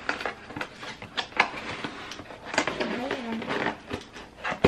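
Hands handling and opening a cardboard box and its packaging: irregular rustling with small knocks and clicks.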